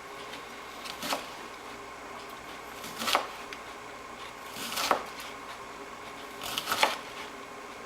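Knife slicing through a raw fennel (anise) bulb onto a cutting board: four or five crisp cuts, about two seconds apart.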